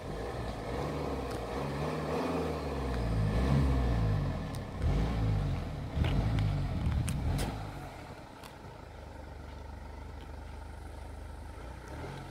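Mercedes C220d four-cylinder diesel engine, heard at the exhaust tips, revved up and let fall back about three times. It then settles to a steady idle for the last few seconds.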